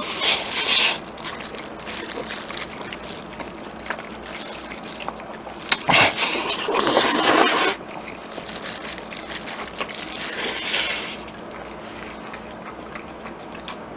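Wet slurping and chewing of jjajangmyeon (black-bean-sauce noodles) eaten by hand, in three bursts. The longest and loudest slurp comes about six seconds in.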